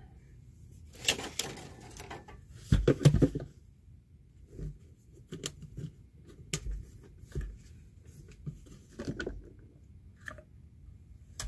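Knocks, bumps and scrapes of a Sanicompact macerator toilet's plastic housing being lifted and set down on a tool placed beneath it to prop it up, loudest about three seconds in, then scattered lighter clicks and bumps.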